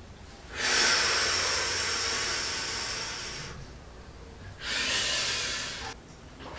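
A person blowing hard, the wolf's huffing and puffing at the house. There are two long whooshing blows: the first lasts about three seconds and slowly fades, and a shorter one comes near the end.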